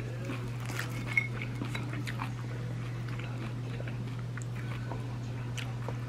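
Soft crackles and small clicks of crusty pastries being handled on a ceramic plate, with one sharp click about a second in, over a steady low hum.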